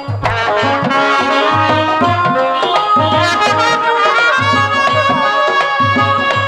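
Instrumental folk-theatre music: hand drums play a steady rhythm of low strokes that slide in pitch, under held melodic lines from the accompanying instruments.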